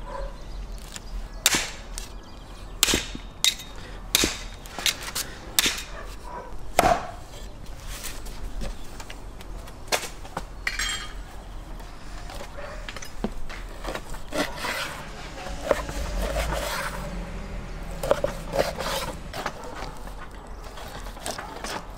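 Hatchet chopping through lamb on a wooden stump chopping block: about seven sharp blows in the first seven seconds. Softer knife cutting on a wooden board follows near the end.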